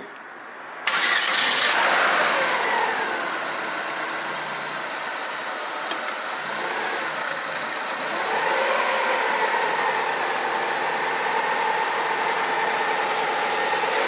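2009 Holden Barina 1.6-litre four-cylinder engine cranking and catching a little under a second in, its start-up flare falling away to a steady idle. About eight seconds in it runs up slightly as the car is driven in gear on the hoist with the front wheels hanging free.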